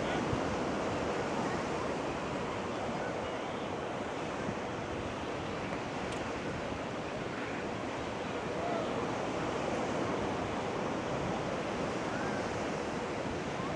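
Ocean surf breaking and washing up the beach in a steady rushing wash that swells and eases, with some wind on the microphone and faint distant voices.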